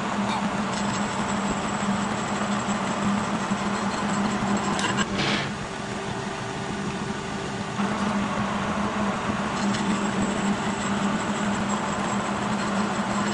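Kearney & Trecker horizontal milling machine running steadily, its side-milling cutter cutting spline grooves in a Delrin shaft, with a steady hum under the cutting. A brief clatter about five seconds in.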